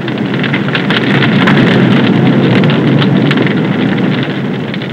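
A large fire burning: dense crackling over a steady rushing noise, swelling about two seconds in and easing off near the end.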